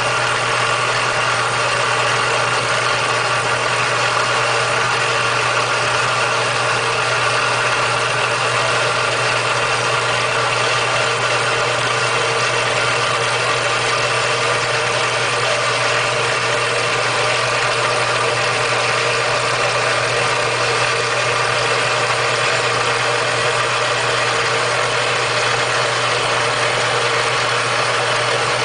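Early 20th-century watchmaker's pinion cutting engine running steadily with no work in it, not cutting a pinion: a constant hum with many steady tones from its drive and spindles.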